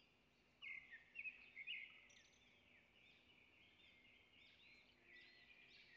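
Faint birds chirping in the background, a string of quick rising and falling notes, loudest from about half a second to two seconds in.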